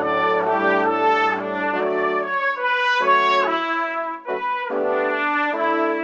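Sampled orchestral brass, trombones among them, from the Spitfire Symphonic Series, playing a passage of chords that move every half second or so, with a brief break a little after four seconds in. Heard dry from the close microphones only, without the Berlin Studio convolution reverb.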